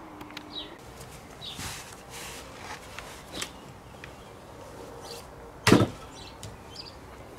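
Footsteps in work boots scuffing over sawdust-covered ground, with one heavy thump about six seconds in, the loudest sound here. Birds chirp faintly.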